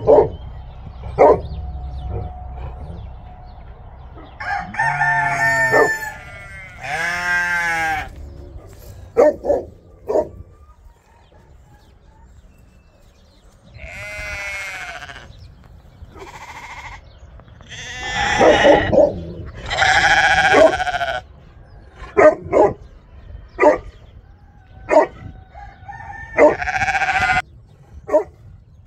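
Farmyard animal calls: roosters crowing back and forth and sheep bleating, with short single barks from a Great Pyrenees dog at the fence.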